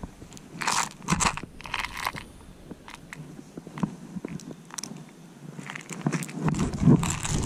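Dry leaf litter crunching and rustling close by as someone shifts about on it, in short bursts: a few in the first two seconds, scattered small clicks in the middle, and more crunching again near the end.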